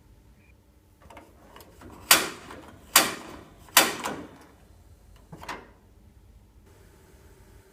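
Pyrox Executive Plus gas heater's controls being worked: three loud, sharp clicks a second or less apart, then a weaker fourth. A faint steady hum starts near the end.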